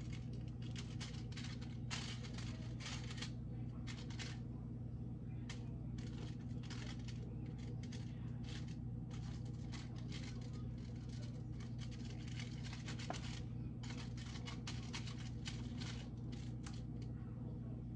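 Plastic or foil packaging being handled and crinkled, in many short rustles and crackles, over a steady low hum.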